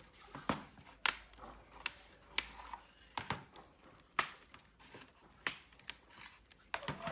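Sharp clicks and taps of plastic laptop parts being handled and fitted together, about a dozen at irregular intervals.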